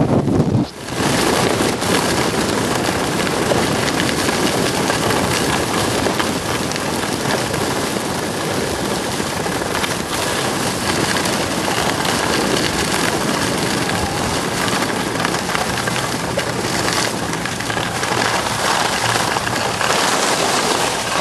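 Skis sliding over packed snow on a downhill run: a steady, loud hiss much like rain, with some wind on the microphone.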